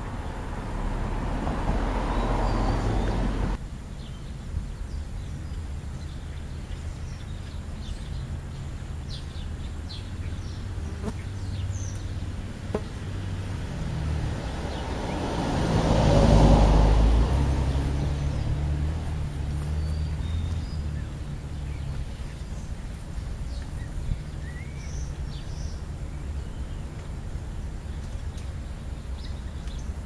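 A car drives past, swelling and then fading about halfway through, over a steady low rumble. Faint short bird chirps come now and then, and in the first few seconds a hand rustles the food pile close to the microphone until the noise stops abruptly.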